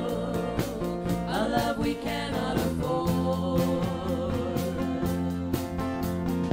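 Live worship band: several singers in unison with strummed acoustic guitars, electric bass and a drum kit keeping a steady beat.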